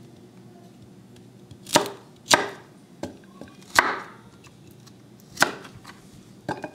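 Knife chopping raw cauliflower florets on a cutting board: about five separate sharp chops, irregularly spaced a second or more apart.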